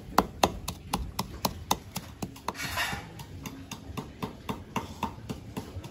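Pestle pounding garlic, chili, sugar and MSG in a mortar for a sweet-and-sour fish-sauce dip, about four steady strikes a second, with a brief hiss about halfway through.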